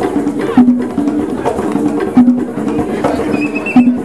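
East African hand drums playing a steady, repeating rhythm, with a loud accented stroke about every second and a half.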